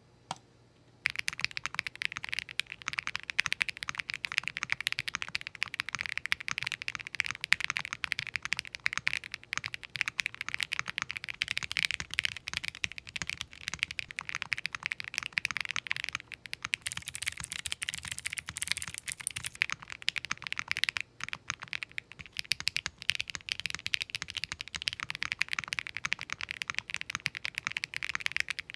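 Sound test of Akko x Monsgeek Green Fog heavy linear switches (60 g actuation, factory-lubed) on a Tofu60 top-mount keyboard with case foam only: continuous fast typing, a dense run of key presses. One key press comes just before the typing begins about a second in.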